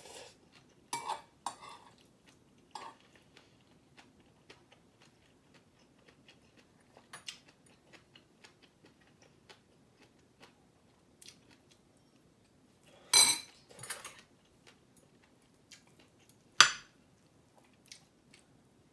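Eating utensils clinking and knocking against a dish, with scattered light clicks and two louder strikes near the end, and quiet chewing in between.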